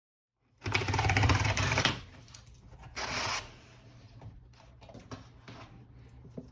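Packaging of a new laptop being torn open: a loud crackling rip lasting over a second, a shorter rip about three seconds in, then light rustling and small taps.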